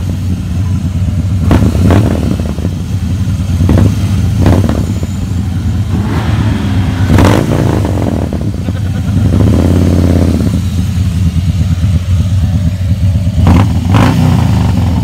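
Motorcycle engine running at road speed, its pitch swelling briefly about ten seconds in, with repeated gusts of wind buffeting the microphone.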